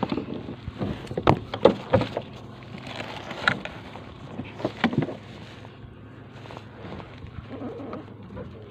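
Knocks and clatter of a freshly landed mangrove jack being handled on a plastic kayak's deck, with about six sharp knocks in the first five seconds, then quieter rustling and shuffling.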